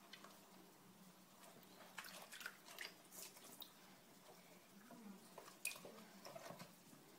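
Faint splashing and dripping of water in a shallow plastic tub as a ferret wades and tugs a rubber dumbbell toy out with its mouth. The splashes come in short spurts about two seconds in and again near six seconds, over a faint steady hum.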